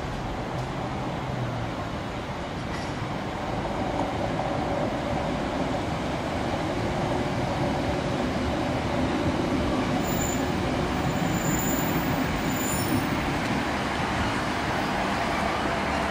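Class 150 Sprinter diesel multiple unit drawing into a station platform, its engine and wheel noise growing steadily louder as it comes near. Faint high squeals about two-thirds of the way through as it brakes.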